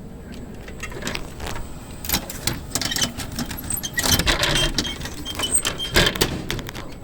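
Clicks, knocks and clatter of someone handling a vending machine, with the biggest bangs about four and six seconds in and a few short high beeps between them.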